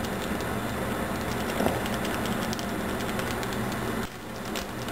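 A steady low mechanical hum, with faint rustling and trickling as dry falafel mix is poured from a plastic bag into a metal measuring cup. The hum dips briefly about four seconds in.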